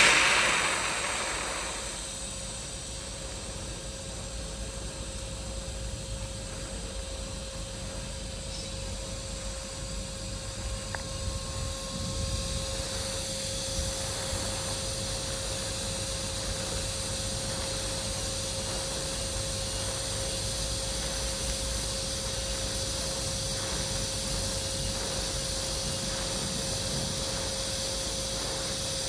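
TIG welding arc on stainless steel, a steady hiss with a constant whine, after a brief louder rush right at the start.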